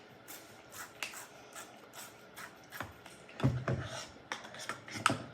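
Irregular light clicks, taps and rubbing of utensils and containers being handled, with a heavier knock about three and a half seconds in and a sharp click near the end.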